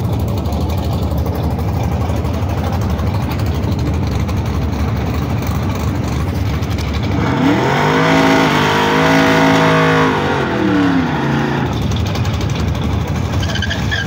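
Race car engine revving hard in a burnout: it climbs about seven seconds in, holds high for about three seconds, then drops back to idle, while tyre smoke rises around the car. A steady loud rumble of other engines runs underneath.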